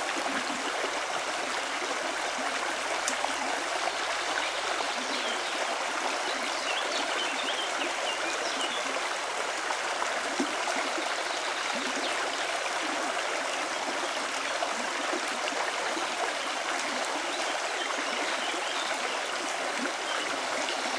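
Small taiga river running steadily over stones: an even, continuous rush of flowing water.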